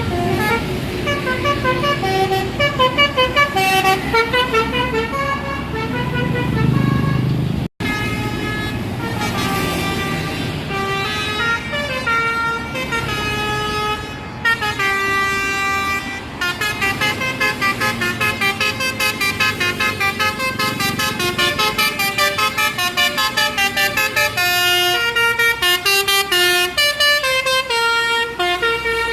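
Telolet basuri musical bus horns playing quick melodies of short stepped notes, one tune after another, with a momentary break about eight seconds in.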